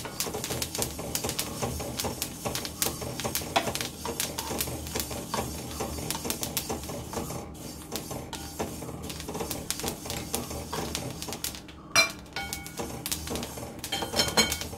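Black sesame seeds crackling and popping rapidly as they dry-roast in a steel kadai, heard as a dense run of small sharp pops, the sign that the seeds are roasting through. About twelve seconds in there is a single ringing metal clink.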